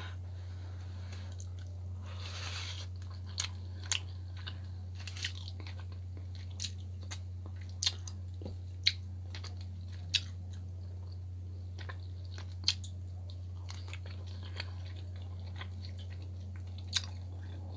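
A person chewing a mouthful of baked salmon close to the microphone, with sharp mouth clicks scattered about a second apart, over a steady low hum.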